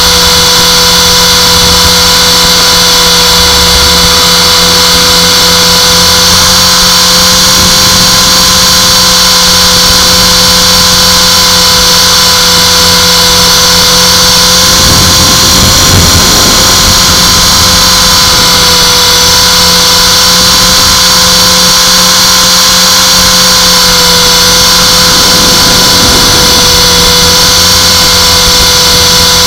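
Align T-Rex 450 electric RC helicopter's motor and gears whining loud and close, over a steady rush of rotor noise. The pitch wavers slightly now and then as the throttle changes.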